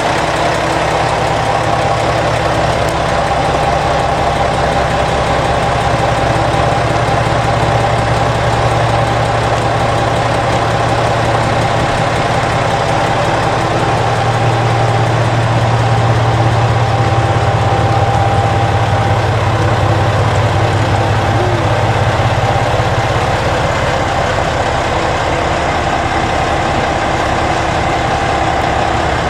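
JR Shikoku 2000-series tilting diesel railcars standing with their diesel engines idling: a loud, steady low rumble and hum that grows a little louder about halfway through.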